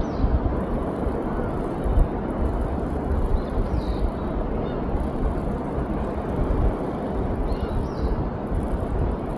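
Steady noise of surf and wind on a sandy beach, with gusts buffeting the microphone. A few faint, short, high bird calls come through about every four seconds.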